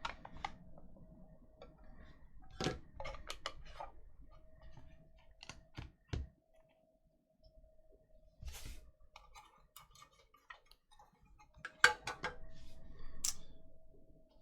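Sports card box and packaging being opened and handled on a table: scattered clicks, taps and light knocks of plastic and cardboard, busiest about 3 s in and again near 12 s, over a faint steady hum that drops out and returns.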